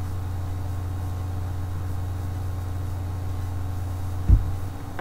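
Steady low hum with a few faint constant tones above it, and a single low thump about four seconds in.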